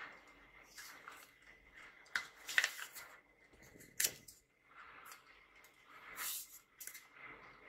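Kraft-paper book envelopes rustling and crinkling as they are handled and moved about on a desk, with a few sharp taps and knocks spread through.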